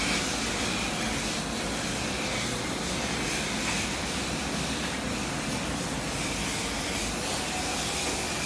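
Steady machine noise with a strong hiss, unchanging throughout.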